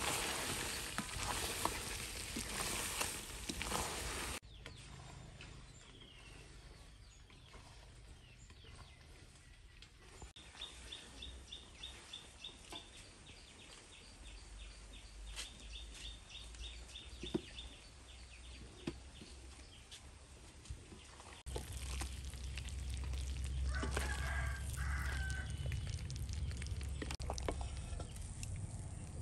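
Bananas in syrup sizzling in a wok for a few seconds. After that come quieter rural surroundings with chickens: a fast run of high ticking calls midway and a rooster crowing near the end.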